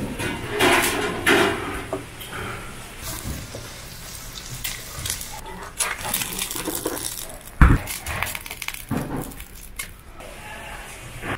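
Kitchen utensil clatter: metal tongs and a spatula knocking against steel food trays, a steel bowl and a frying pan, with one loud thump about two thirds of the way through.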